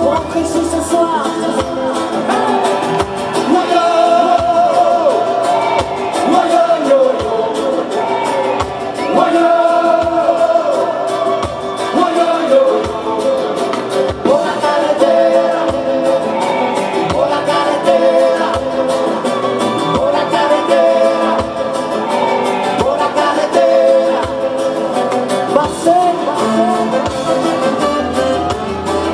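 Live band playing a song with sung vocals and a steady beat over a concert PA, heard from out in an open-air crowd.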